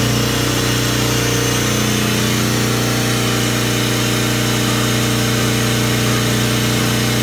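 Sperre marine air compressor running steadily, a constant low machine hum with a broad hiss over it.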